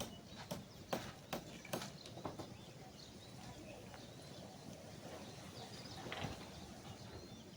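Sharp knocks of hand work on a building site, about two or three a second for the first two seconds, then a low background with one duller thud about six seconds in.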